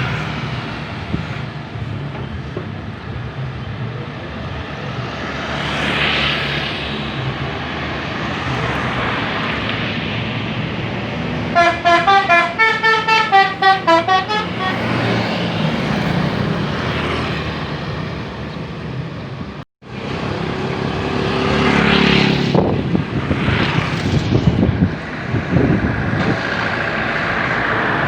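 Bus engines and traffic running steadily. About halfway through, a bus's telolet horn plays a quick tune of short notes for about three seconds. There is a sudden dropout about two-thirds of the way in, then louder noise from vehicles passing.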